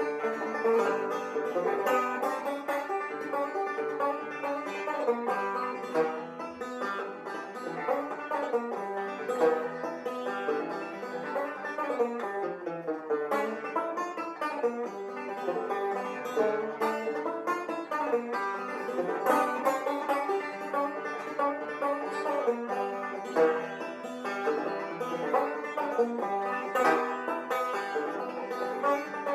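Solo banjo music, fast plucked picking in a bluegrass style.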